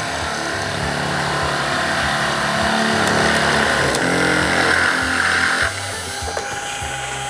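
The small electric motor of a PlayMake (PlayMat) children's woodworking machine, set up as a drill press, runs while its bit grinds a hole into dry plywood, fed by a hand crank. The grinding grows louder and then stops suddenly about two-thirds of the way in, while the motor keeps running.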